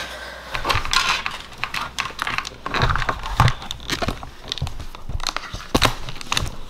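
Fabric rustling close to the microphone, with many irregular crackles and soft knocks.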